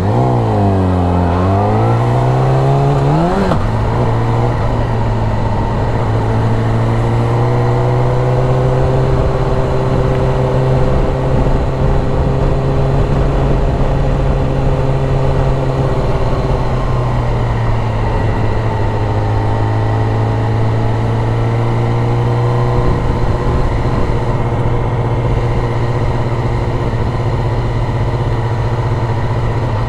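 Yamaha YZF-R6 sport bike's inline-four engine, heard from the bike. Its pitch falls and then climbs over the first few seconds, then holds steady as it cruises. The pitch sags briefly about halfway through before settling again.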